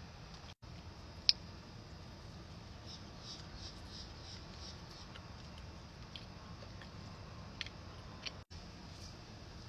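Close-miked eating sounds: soft crunching and chewing with scattered small clicks, and one sharp loud click about a second in, over a low steady hum.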